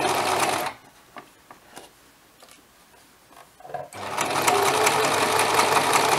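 Domestic electric sewing machine running a straight stitch through layered cotton fabric, stopping about a second in. A few light clicks follow while it stands, and it starts sewing again about four seconds in.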